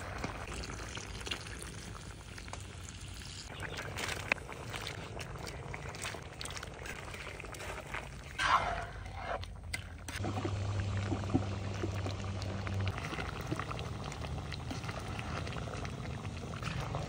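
Liquid being poured in a kitchen, with a few light clicks of utensils. A steady low hum starts about ten seconds in.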